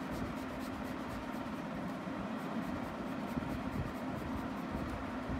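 Green colored pencil shading on drawing paper: a steady run of short, quick scratching strokes.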